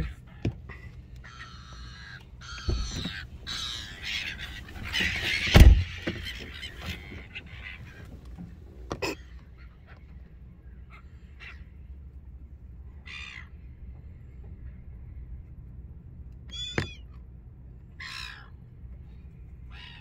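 Silver gulls squawking and squabbling at close range, a dense clamour for the first several seconds, then single harsh calls every second or two. Two loud thumps come in the thick of the squabble.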